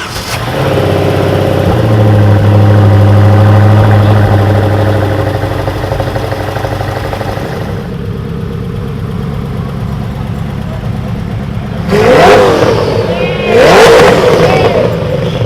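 A supercar engine running at a loud, steady idle that settles lower about eight seconds in, then revved twice near the end, each blip rising and falling in pitch.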